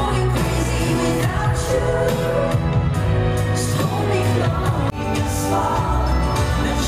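Live pop music with a singer over a loud band or backing track, heard from among the arena audience. About five seconds in, the music breaks off and a different passage of music follows.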